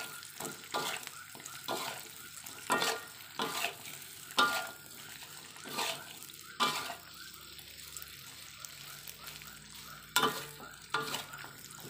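Spatula scraping and clanking against a wok as sliced jengkol is stirred through frying spice paste, over a faint sizzle. The strokes come about once a second, with a lull of a few seconds before the last ones.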